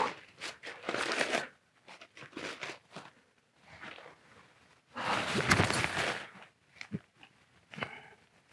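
Nylon tent fabric and a padded jacket rustling and crinkling in irregular bursts as the inner tent is handled, the longest burst about five seconds in, with a couple of sharp clicks near the end.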